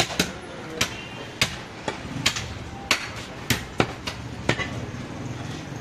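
Long butcher's knife chopping goat meat on a wooden log chopping block: about ten sharp knocks in a quick, irregular series.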